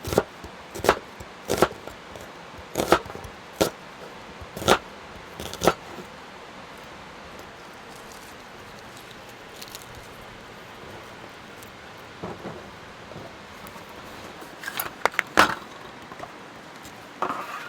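A series of sharp clicks and clinks, typical of camp cookware and utensils being handled during food preparation, about seven in the first six seconds and a few more near the end, over a steady background hiss.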